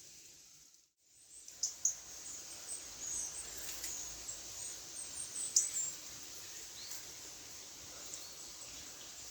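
Small songbirds, tits and a Eurasian nuthatch, giving short high chirps and calls over a steady background hiss. A couple of sharp taps come just after a brief dropout about a second in.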